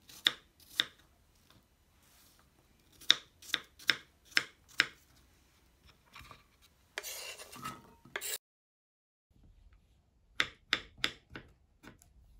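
Kitchen knife chopping on a bamboo cutting board, dicing apple: sharp taps of the blade against the wood, several a second in short runs. About seven seconds in there is a second or so of rubbing, scraping noise, then a short gap and another quick run of knife taps.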